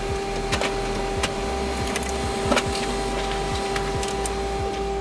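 Printer running a print job: a steady mechanical hum with a constant whine, broken by scattered clicks and ticks as a sheet feeds out onto the output tray.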